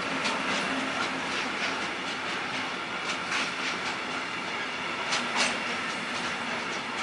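Rolling-highway (Rola) freight train, its low wagons loaded with lorry trailers, rolling past: a steady rolling noise of steel wheels on rail, with sharp wheel clicks that often come in pairs, the loudest pair about five seconds in.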